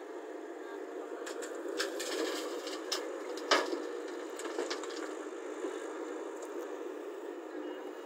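Caterpillar hydraulic excavator running steadily as its bucket dumps soil and rocks into a steel dump truck bed: a run of clattering knocks and crackles between about one and four seconds in, the loudest near the middle.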